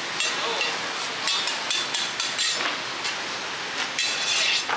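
Metal spatula knocking and scraping against a round pan in which a thick scallion pancake is frying, several sharp strikes over a steady sizzle.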